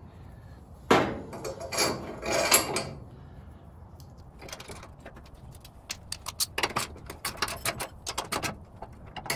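Metal-on-metal clinks and rattles of a bolt, washer and nut being fitted by hand to a steel bumper bracket, with a run of quick sharp clicks in the second half.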